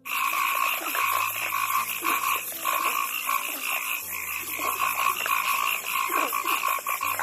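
A chorus of frogs calling, many rapid croaking calls overlapping in a continuous din that starts and stops abruptly.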